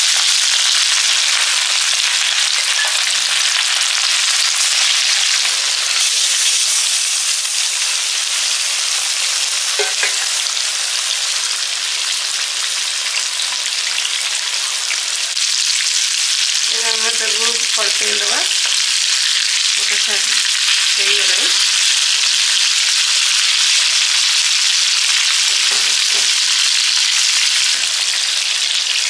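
Marinated rohu fish pieces frying in hot mustard oil, a loud, steady sizzle.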